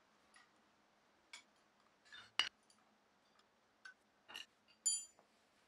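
Scattered metal clicks and clinks of a wrench on the nuts and washers of concrete sleeve anchors and the steel base plate they hold down, the nuts being tightened to wedge the anchor sleeves in their holes. The clicks come one or two at a time, the loudest near the middle, and one near the end rings briefly like struck steel.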